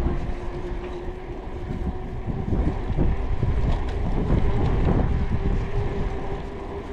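Wind buffeting the microphone during a mountain-bike ride: a rumbling noise that swells around the middle, with a faint steady hum underneath.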